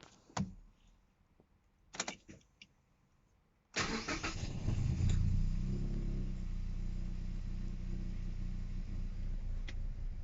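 A few light clicks, then about four seconds in the NC Mazda MX-5's four-cylinder engine fires up, flares briefly and settles into a steady idle that is really rough.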